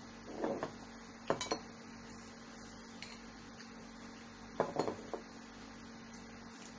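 Spoon and fork clinking against a bowl of bakso meatball soup during eating, a couple of short clinks about a second in and a few more near five seconds, over a faint steady hum.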